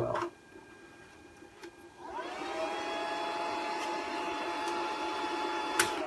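Netgear XS708T 10-gigabit managed switch's cooling fans spinning up at power-on about two seconds in, rising quickly in pitch and then holding a steady whine over an airy hiss. This is the switch's first power-up, when its fans run flat out while it boots. A brief tap sounds near the end.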